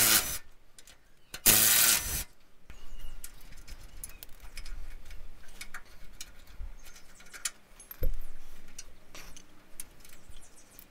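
A cordless power tool runs in two short bursts, spinning the nuts off the chassis bolts, followed by light metallic clicks and clinks of the loose nuts, washers and fittings being handled, with one louder clink about eight seconds in.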